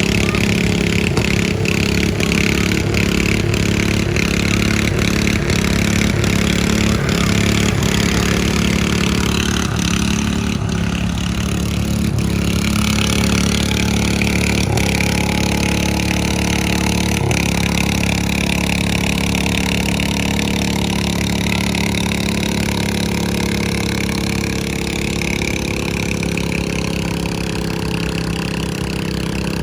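A pulling lawn mower's engine running loudly and steadily. A sharp click comes about once a second through roughly the first twelve seconds.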